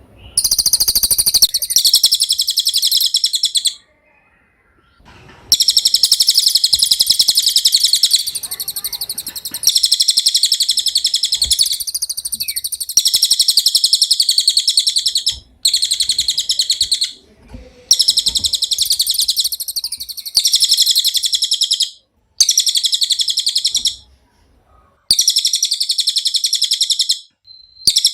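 Cililin songbird singing a rapid, very high-pitched trilling song in repeated bouts of a few seconds each, broken by short pauses.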